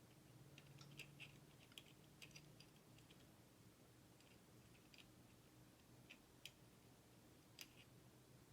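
Faint, irregular small metallic clicks of a pick and tension tool working the levers inside a Western Electric 29B five-lever lock, a tick every second or so over a low steady hum.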